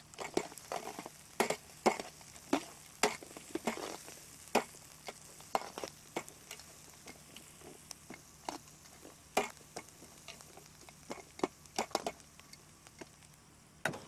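A long metal ladle stirring and scraping through chopped onion and whole spices frying in oil in a large aluminium pot, with a faint sizzle underneath. The scrapes and knocks come irregularly, thickest in the first few seconds and again near the end.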